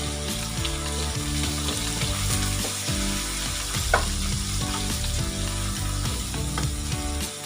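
Food sizzling as it fries in a pan, a steady hiss with a single sharp knock about four seconds in, over background music.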